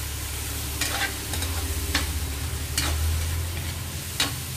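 Shrimp and tomato sizzling in a hot metal wok while a spatula stirs and scrapes them, with several sharp clinks of the spatula against the wok.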